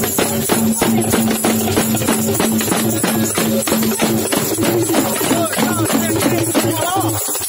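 Batucada percussion: small drums struck with felt-tipped mallets, with a jingling tambourine, playing a quick, steady beat.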